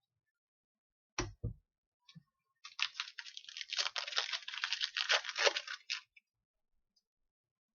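A couple of soft thumps, then about three seconds of crinkling and tearing as a 2015-16 O-Pee-Chee hockey card pack wrapper is torn open.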